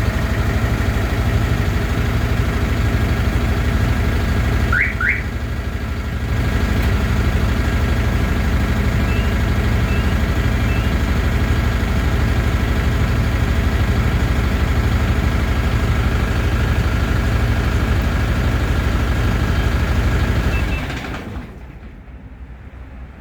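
Truck diesel engine idling steadily, with two quick rising chirps from an add-on car alarm siren about five seconds in. The engine shuts off about 21 seconds in.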